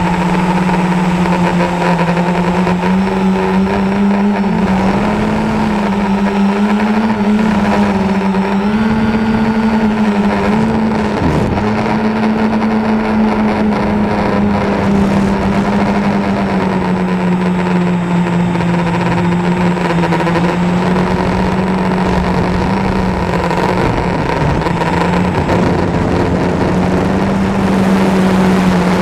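A 450-size quadcopter's brushless motors and propellers humming steadily, heard close up from its onboard camera. The pitch wavers slightly up and down as the throttle changes, with a brief drop about eleven seconds in.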